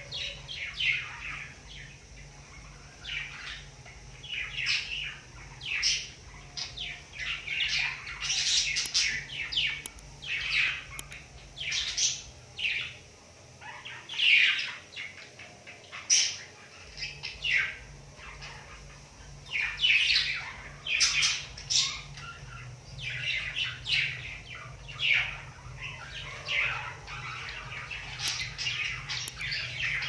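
Budgerigar chirping: a long run of short, high chirps in irregular clusters.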